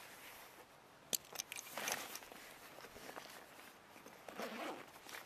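A backpack pouch being handled and opened: a few sharp clicks a little over a second in, then faint rustling of fabric and contents.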